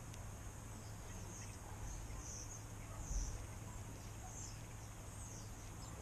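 Faint, short high-pitched chirps from small animals, about one a second, over a low steady hum. One brief low thump about three seconds in.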